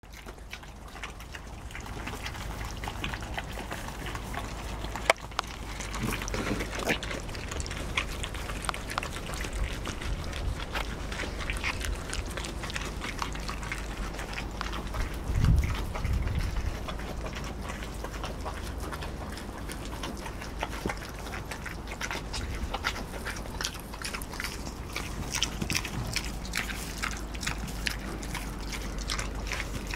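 Kunekune piglets eating grain, with many small crunching clicks and soft grunts, later a piglet snuffling close by. A sharp knock comes about five seconds in and a low bump around the middle.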